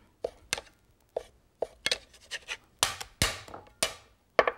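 Chinese cleaver slicing raw lamb and knocking on a wooden cutting board: about a dozen sharp, irregularly spaced knocks, the loudest a little after three seconds in.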